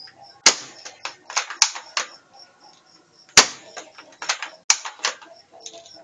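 Spring-powered MP5 airsoft gun being hand-cocked and fired: a series of sharp plastic clacks and snaps. The two loudest come about half a second in and about three and a half seconds in, with smaller clusters of clicks between and after them.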